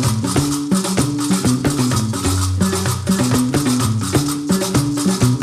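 Algerian Diwan (Gnawa) music: a gumbri, the three-string bass lute with a skin-covered body, plucks a repeating low riff, while qraqeb iron castanets clatter in a fast, steady rhythm.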